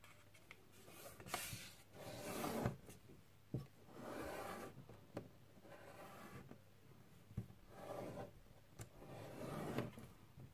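Faint rustling and sliding of a sheet of paper on a wooden desk as it is unfolded and smoothed flat by hand, in several soft swells with a few light knocks.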